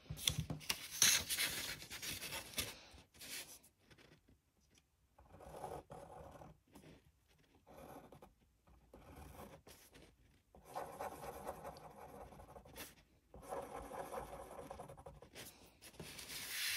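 A fine-tip pen drawing on paper, scratching in short strokes. The strokes come in several stretches with brief pauses between them.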